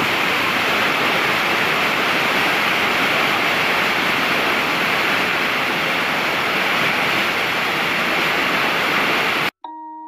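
Large waterfall at close range: a loud, steady rush of falling water that cuts off abruptly near the end. Soft chiming music notes start just after it.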